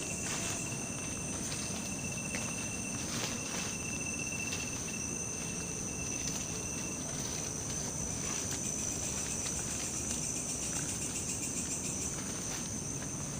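Insects chirring steadily in a continuous high-pitched drone, with a second, lower steady tone that stops about seven seconds in. Scattered footsteps crunch on fallen twigs and wet leaves.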